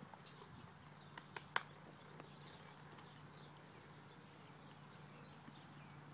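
Faint hoofbeats of a ridden horse moving over the soft dirt of a pen, with a few sharp clicks about a second and a half in.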